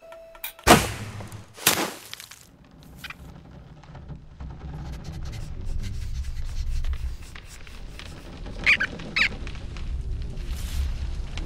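Cartoon sound effects. A sharp snap from a drawn bow and arrow comes about a second in, then a second sharp crack a second later. A low rumble builds steadily after that, with two quick squeaks near the end.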